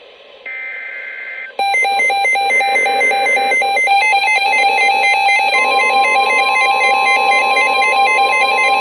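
A one-second screech of EAS/SAME digital header data. About a second and a half in it gives way to a loud, rapidly warbling alert alarm. A steady high attention tone joins the alarm about halfway through, marking the start of a new NOAA Weather Radio emergency alert.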